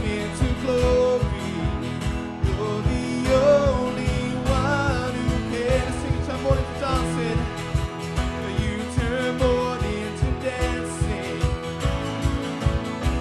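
Worship band music: a song with sustained chords, a melody line and a steady beat.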